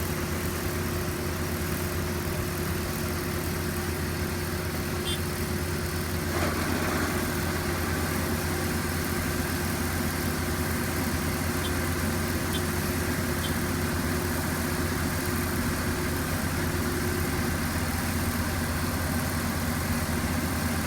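Mitsubishi VR6108 six-row rice combine harvester running steadily, its diesel engine a constant low drone; the sound grows slightly fuller about six seconds in.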